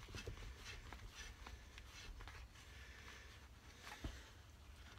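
Faint scraping and light clicks of a 13/16-inch hand reamer being turned in the camshaft bush of a BSA A70L Lightning crankcase, taking a little metal out of the bush to free off a tight cam. One louder knock comes about four seconds in.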